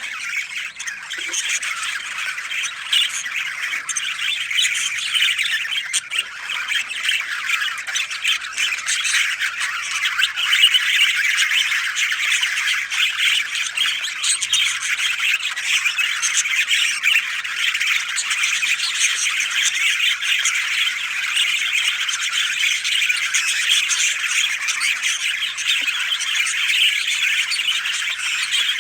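A dense, continuous chorus of many birds calling and chattering at once, steady throughout.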